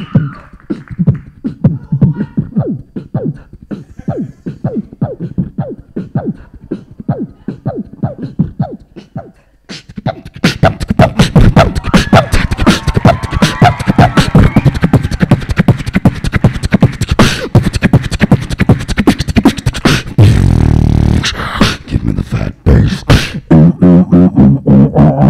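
Live beatboxing through a handheld microphone: a quieter rhythmic pattern first, a brief pause about ten seconds in, then a loud, dense, fast beat of sharp percussive strokes, with a held low bass sound a little past the twenty-second mark.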